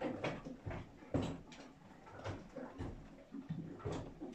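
A horse moving and feeding in a straw- and hay-bedded stall: irregular rustling, crunching and light knocks, several a second but never in an even rhythm.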